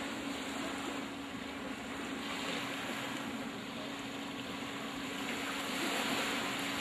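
Seaside wind and surf noise on the microphone, swelling slightly about halfway through and again near the end, over a steady low hum.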